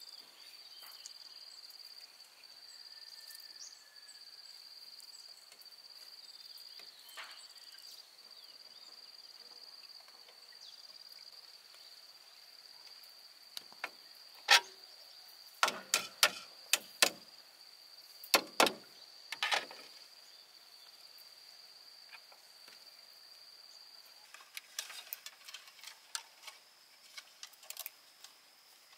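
Insects singing in a steady high-pitched drone that stops a few seconds before the end. A cluster of about eight sharp knocks comes in the middle, then a run of faint light clicks near the end.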